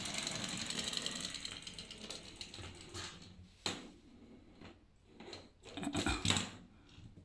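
A small running toy's motor whirring with a steady buzz that gradually fades over the first few seconds. A sharp knock comes a little under four seconds in, and a cluster of knocks and scuffs about six seconds in.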